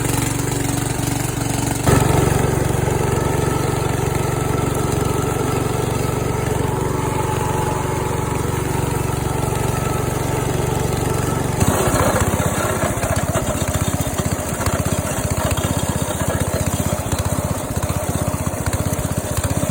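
Yard Machines riding mower's 14 hp Briggs & Stratton engine running steadily. Its sound gets louder about two seconds in and turns choppier about two-thirds of the way through.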